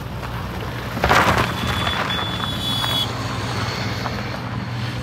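Kia Seltos diesel SUV engine running as the car drives past on a dirt track, with tyre noise on the gravel and a louder rush of noise about a second in. A thin high tone sounds briefly near the middle.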